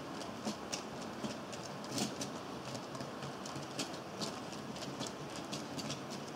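HO-scale model freight train of car-carrier and open wagons rolling past on the track: a steady rolling rumble of small metal wheels on rail, with irregular clicking from the wheels, the loudest click about two seconds in.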